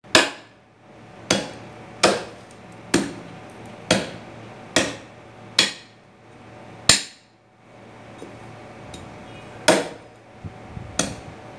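Heavy cleaver chopping through beef ribs onto a round wooden chopping block: sharp chops about once a second, each with a brief ring, eight in a row, then a pause of nearly three seconds before two more.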